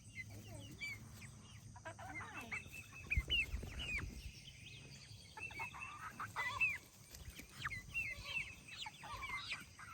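Several chickens clucking and calling, a stream of short, bending calls from more than one bird. A low thud about three seconds in.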